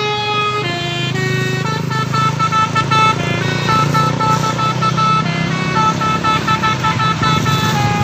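Tour bus's multi-tone 'telolet' musical horn playing a melody of loud, stepping notes, over the low rumble of the bus running.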